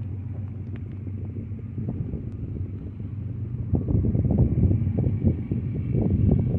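Distant BNSF diesel locomotives approaching on the mainline: a low, steady rumble that grows louder and rougher about halfway through.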